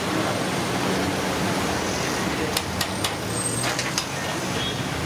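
Vada batter deep-frying in a large kadai of hot oil, sizzling steadily, with a few sharp metal clinks of the perforated skimmer against the pan about halfway through.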